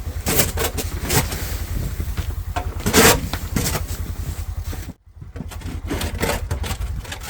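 Snowmobile engine idling with a steady low pulsing rumble, with scrapes and knocks on top. The sound breaks off for a moment about five seconds in, then carries on.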